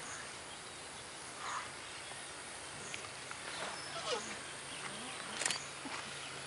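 Asian elephants calling faintly: a few short falling squeaks and low grunts over a steady hiss, with one sharp click about five and a half seconds in.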